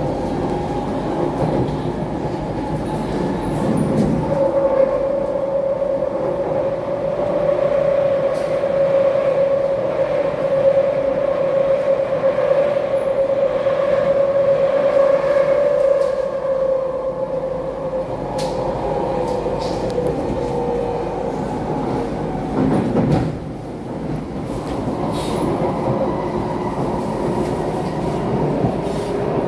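SMRT C151C MRT train heard from inside the passenger car while running at speed: a continuous rumble of wheels on rails. A steady whine comes in about four seconds in and fades out around the middle.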